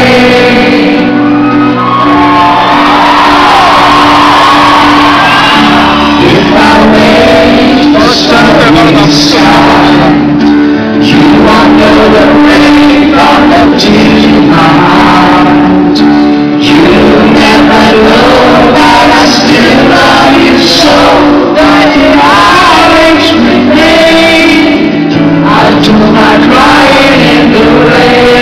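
Live pop-rock band playing a song: a male lead voice singing over electric guitar and steady sustained low notes, loud and echoing in a large hall, heard from within the audience.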